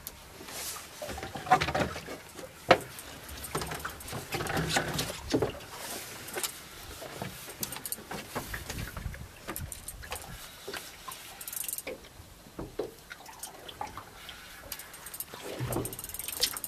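Fishing reel being cranked against a heavy fish: irregular clicking and knocking from the reel and rod, with rustling from handling the gear. Two sharper knocks come about one and a half and nearly three seconds in.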